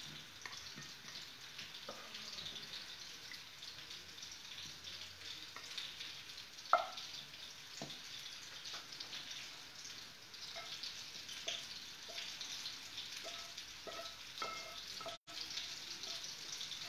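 Steady sizzle of food frying in hot oil, with a few light scrapes and clicks of a wooden spatula against the pan and plate and one sharper knock about seven seconds in.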